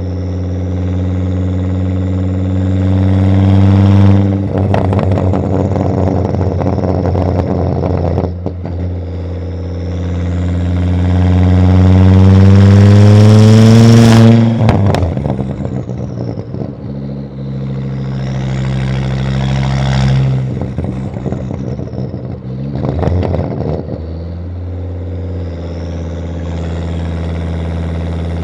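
Volvo S60 2.5T's turbocharged inline-five through a catless exhaust, running and being revved: the engine note climbs for a few seconds to a peak about halfway through, then falls away suddenly into a spell of crackling pops. Stretches of crackle also come earlier and near the end, with a high turbo whistle gliding up and down over the engine note.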